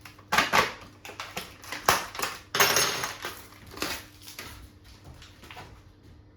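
Kitchen handling noises: a quick series of knocks and clinks of utensils and containers, with a crinkly rustle in the middle, dying down to faint taps in the last couple of seconds.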